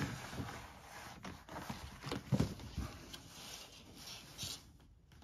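A large folded paper gaming map is shifted and turned over on a wooden table by hand: crinkly rustling with several soft thumps, the loudest about two and a half seconds in. The handling dies away near the end.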